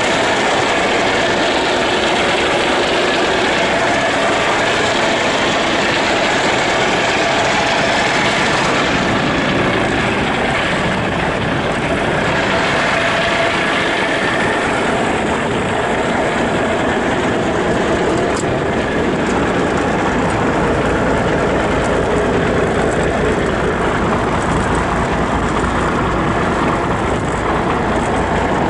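Cummins diesel engine of a 1984 Kenworth W900 truck idling steadily.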